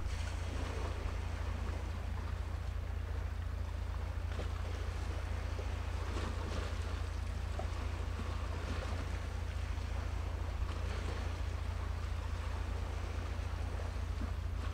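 Steady low rumble with a faint, even wash of noise over it: outdoor wind and sea ambience.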